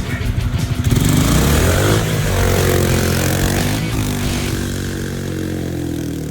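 Mini bike's small single-cylinder engine revving. It climbs about a second in, dips and climbs again around the middle, then slowly eases off.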